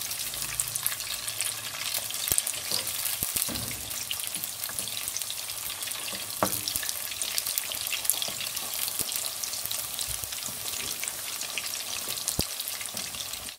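Batter-coated chicken pieces deep-frying in hot oil in a kadhai: a steady crackling sizzle. A few sharp clicks of a metal spoon against the pan come through as the pieces are turned over.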